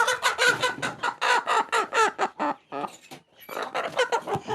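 Chickens clucking and squawking in fast, repeated short calls, about six a second, with a brief pause about three seconds in. These are the agitated calls of hens that are being caught and moved.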